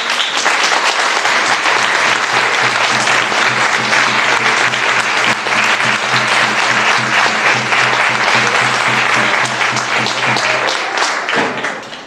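Audience applauding, loud and sustained, with music playing beneath it; the applause dies away near the end.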